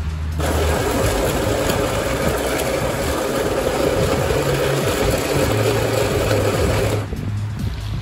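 Baratza Encore conical burr coffee grinder running, grinding whole coffee beans in a test run with its newly replaced paddle wheel; the motor starts about half a second in, runs steadily, and cuts off sharply about a second before the end.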